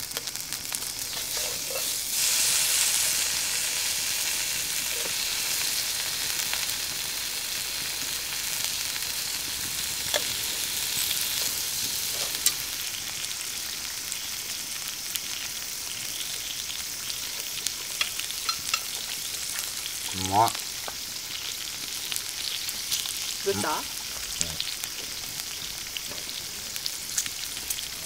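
Chicken frying in a seasoned iron paella pan over a wood fire: a steady sizzling hiss with small crackles and pops, louder for a couple of seconds shortly after the start.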